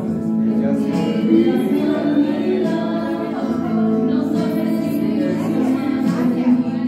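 A woman singing into a microphone over backing music.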